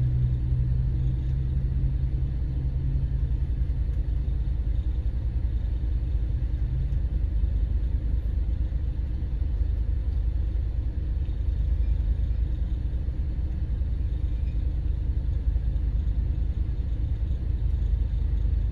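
Steady low rumble of car engines and road traffic, with a steady low hum that fades about seven seconds in.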